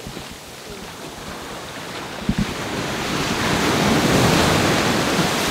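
Ocean surf: a wave breaks and washes up the beach, its rush swelling to the loudest point about four seconds in.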